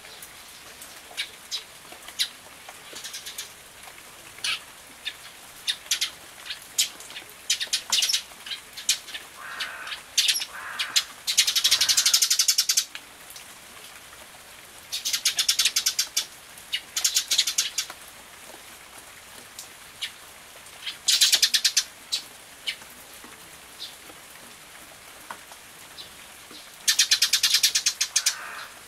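Eurasian tree sparrows chirping on and off, with several bursts of fast chattering calls that are the loudest sounds, over a steady faint hiss of rain.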